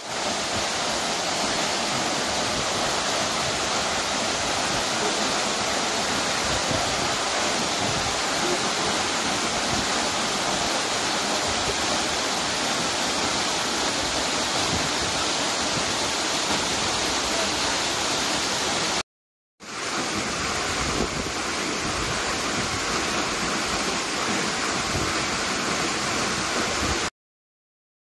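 Hossawa Falls, a tall waterfall, pouring into its plunge pool: a steady rush of falling water. It breaks off for about half a second two-thirds of the way through, then cuts off suddenly near the end.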